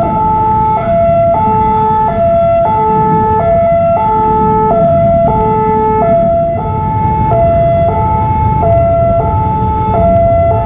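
Railway level-crossing warning alarm sounding a steady two-tone high-low signal, each note a little over half a second long and repeating without a break, over low road-traffic rumble. It is the sign that the crossing is closed for an approaching train.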